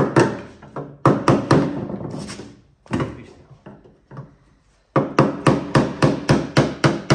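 Hammer blows on metal with a ringing after each one. First a few uneven strikes, then from about five seconds in a quick steady run of about four a second. The work is opening the S10's old fuel tank to get at the fuel pump.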